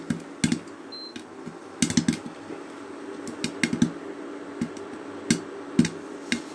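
Popcorn kernels popping inside a closed pressure cooker: scattered sharp pops at irregular intervals, a few each second.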